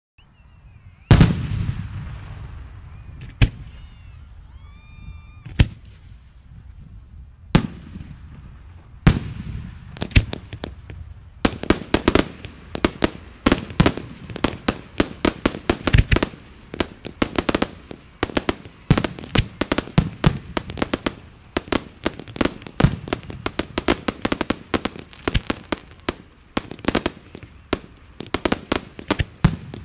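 Professional display fireworks bursting: a few single loud shell reports a couple of seconds apart, each with a rumbling tail, then from about eleven seconds in a rapid barrage of many sharp bursts, several a second.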